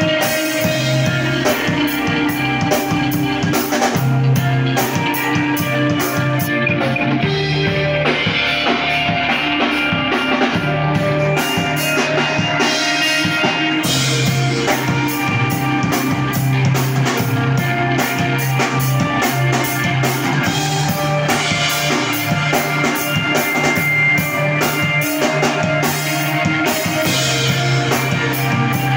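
Screamo band playing live: drum kit with steady cymbal and drum hits under distorted electric guitars and bass guitar, loud and continuous.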